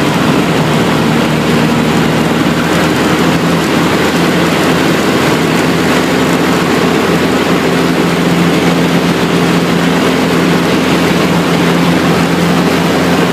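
Light aircraft's piston engine and propeller running steadily in low-level flight, heard from inside the cabin: a constant engine note over a broad hiss of air.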